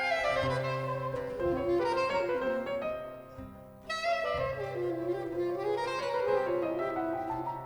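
Soprano saxophone playing a jazz line over piano accompaniment, in two phrases that fall in pitch, with a short lull about halfway through before the next phrase comes in.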